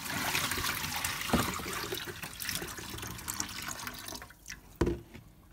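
Water running and splashing into a sink, fading out about four seconds in, followed by a single knock.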